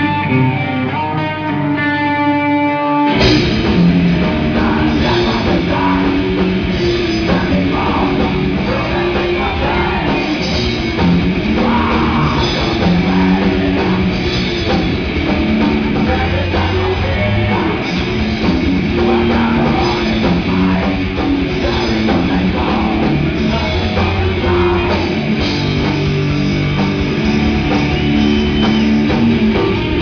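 Live heavy metal band playing. A lone guitar plays a melodic line, then about three seconds in the full band comes in with distorted electric guitars, bass guitar and drum kit, loud and steady.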